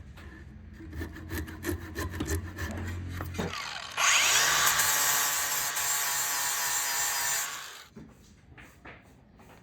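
Wood being cut with a tool: a few seconds of clicks and handling over a low hum, then a loud continuous cutting noise that starts about four seconds in and stops just before eight seconds.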